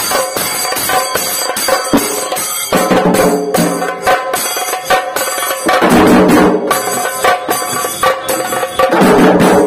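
Dhol tasha band drumming: large barrel dhols and a small tasha beaten in a fast, dense, continuous rhythm, swelling louder about six and nine seconds in.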